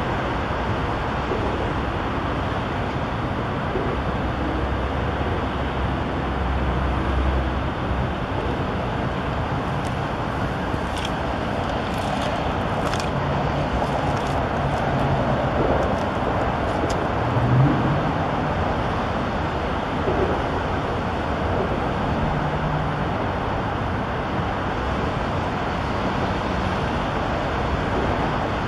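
Steady road-traffic noise from a highway interchange: a continuous wash of tyre and engine sound from passing cars and trucks. A few faint high squeaks come through midway.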